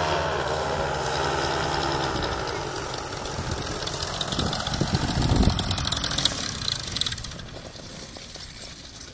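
Simonini 200 two-stroke paramotor engine and propeller on a trike, running with its pitch sagging as the throttle comes back on a low pass. A louder rushing stretch about four to six seconds in as it goes by close, then it fades off near the end.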